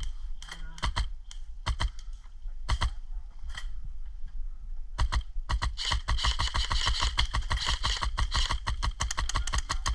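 Airsoft gunfire: a few spaced single shots, then a fast, sustained string of shots from about five seconds in.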